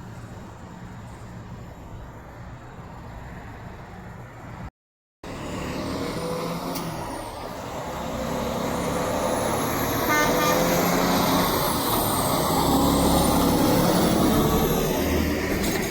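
Semi truck's diesel engine running close by, growing steadily louder over the last several seconds as the truck moves. A low steady hum comes before it, broken by a sudden half-second dropout about five seconds in.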